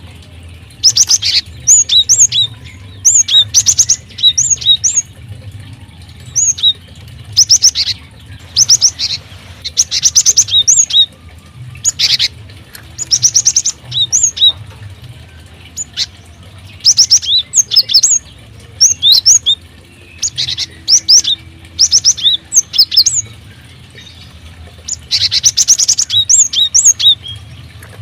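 Small aviary birds chirping in repeated bursts of short, high, quickly rising-and-falling calls, with wing flutters among them, over a steady low hum.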